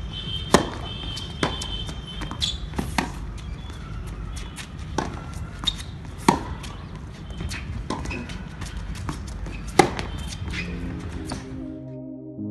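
Tennis balls struck by rackets and bouncing on a hard court during a rally: sharp pops about a second or so apart over a steady low rumble. Near the end the court sound cuts off suddenly and synthesizer music begins.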